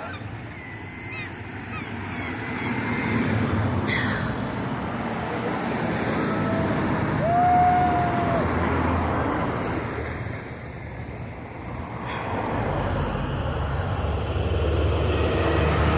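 Road traffic passing, the tyre and engine noise swelling and fading as cars go by, with a short car horn honk about halfway through.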